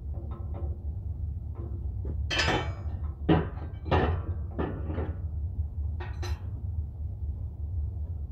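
Metal knocks and short scrapes of tools and steel parts being handled and struck, about ten in all and loudest around three to four seconds in, over a steady low hum.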